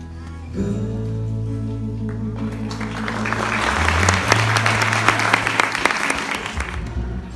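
Audience applauding over a music track: the clapping swells in about two and a half seconds in, is loudest in the middle and tails off near the end.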